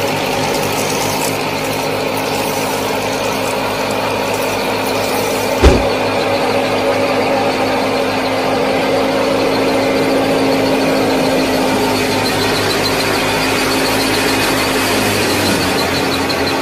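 Small motor of a DIY model tractor and thresher running steadily with a humming whine. There is a single sharp knock about six seconds in.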